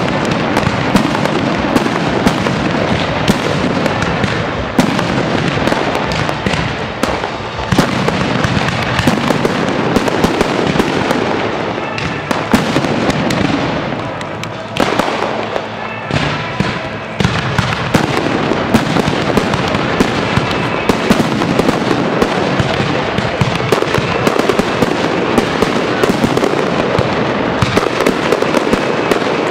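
Fireworks display at full intensity: aerial shells bursting in a dense, rapid barrage of bangs and crackling with no pause. The barrage thins briefly about halfway through, then builds again.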